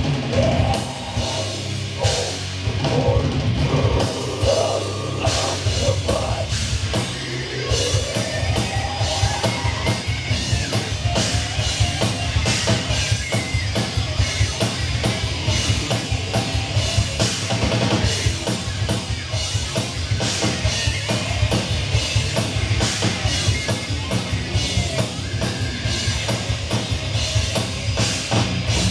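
Heavy metal band playing live: a busy drum kit with many rapid hits under electric guitars, with no break.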